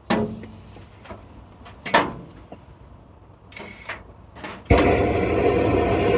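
A few sharp knocks and clatters of things being handled. About three-quarters of the way through, a machine motor switches on suddenly and runs steadily and loudly, with a hum in it.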